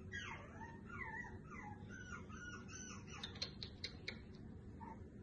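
Dog whining in a run of short whimpers that rise and fall in pitch, with a few sharp clicks about three to four seconds in.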